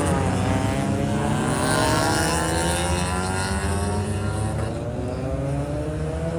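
Car engines revving and accelerating past over a steady low rumble of other running engines. The engine note climbs in pitch over the first couple of seconds, sags, then climbs again near the end.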